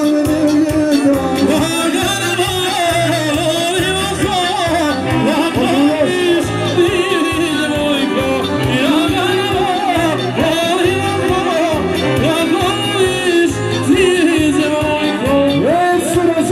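Music with a singing voice over a steady, evenly repeating bass beat.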